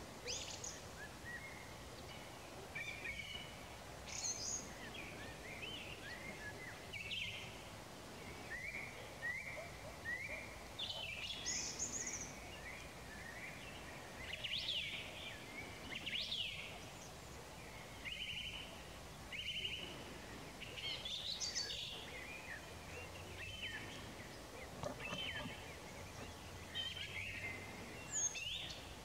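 Several songbirds singing, short high phrases every second or two, over a steady background rush.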